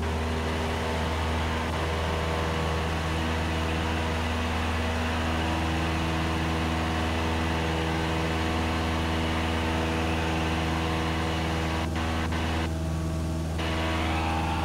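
Cessna 172SP's four-cylinder Lycoming engine and two-blade propeller running steadily at takeoff power, heard from inside the cabin, through the takeoff roll, liftoff and initial climb.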